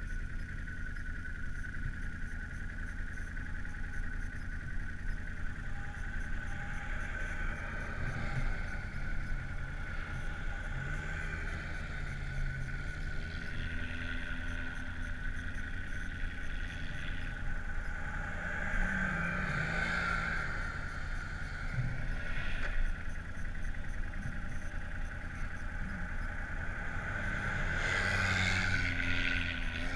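ATV engine running under way, its pitch rising and falling with the throttle, with a steady high whine alongside; it revs up near the end.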